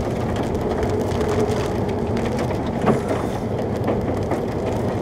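Vehicle driving on a rough gravel road in rain, heard from inside the cab: a steady road rumble with tyres crunching gravel and many small ticks of rain and grit.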